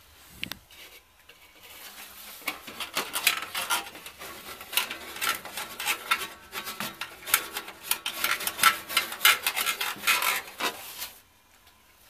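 Irregular scraping and rubbing, a dense run of rasping strokes starting a second or two in and cutting off suddenly near the end.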